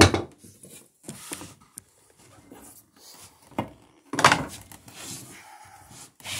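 A loud wooden knock at the start, then light handling noises of tools and planking, with a brief scraping rub about four seconds in.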